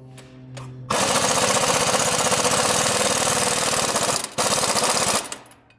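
Cordless impact wrench hammering a shock-mount nut tight. It starts about a second in as a rapid, loud rattle, breaks off briefly, hammers again, then stops shortly before the end.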